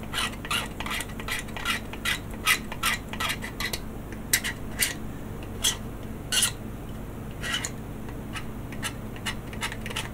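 Short, irregular scraping strokes on hard plastic, many in quick succession at first and then fewer and further apart. Paint is being scraped off a plastic model kit part down to bare plastic so the glue will stick.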